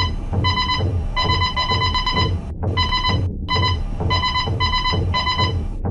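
Short electronic beeps at one high pitch, about three a second in uneven runs, like a retro computer terminal beeping as it prints text, over a low pulsing music bed.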